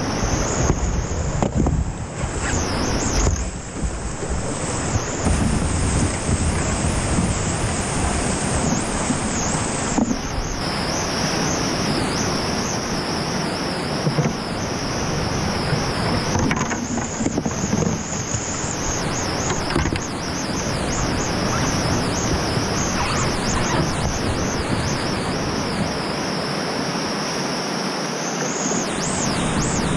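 Steady roar of a big glacial whitewater river running at high water, its rapids heard close from the bank.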